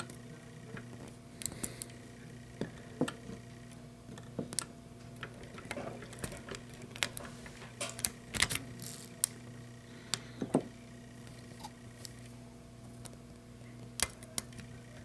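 Irregular small metallic clicks and taps of a lock pick and tension wrench working the pins in the tight keyway of an old US Eagle government padlock, with a low steady hum underneath.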